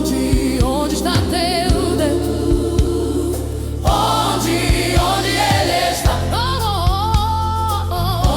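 Groove soul gospel music: a choir-like vocal sings sustained, wavering lines over a steady bass and a regular drum beat.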